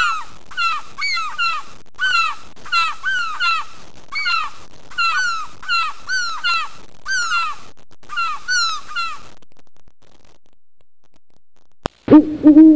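Seagulls calling: a steady run of short calls that bend in pitch, often in pairs, stopping about nine seconds in. Near the end an owl starts hooting.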